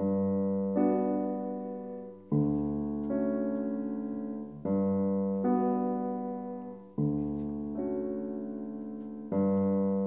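Slow piano music as an interlude: a chord struck about every two and a half seconds, with a further note added shortly after each, each fading before the next.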